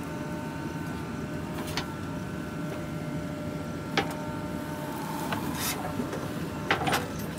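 JCB 3DX backhoe loader's diesel engine running steadily with a thin steady whine, and a few short sharp knocks, the loudest about four seconds in.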